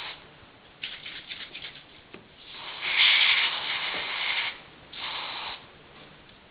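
Aerosol lubricant sprayed into an opened Rubik's cube: a few light clicks, then a long hiss of spray starting about two and a half seconds in and a shorter burst about five seconds in.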